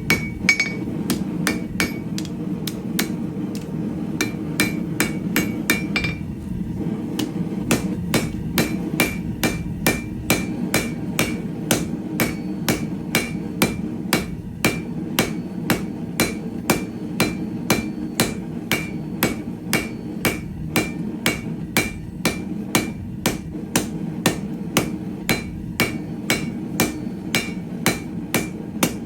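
Hand hammer forging 3/8-inch square steel stock on an anvil: a steady run of blows, about two to three a second, each with a short metallic ring. A steady low hum runs underneath.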